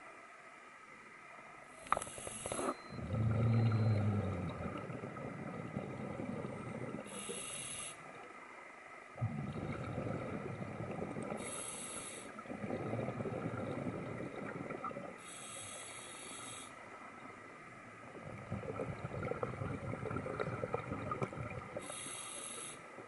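Scuba diver breathing through a regulator underwater: five breaths, each a short hiss of the inhale followed by several seconds of the rumbling burble of exhaled bubbles.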